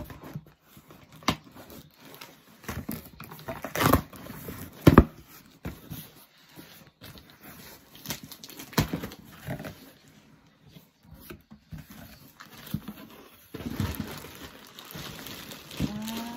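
A cardboard shipping box being handled and opened: irregular knocks and scrapes, the loudest two thuds about four and five seconds in, then steadier rustling of packaging near the end.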